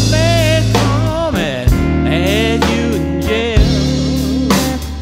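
Live blues trio playing a slow blues: an electric guitar lead with bent, wavering notes over bass guitar and drums.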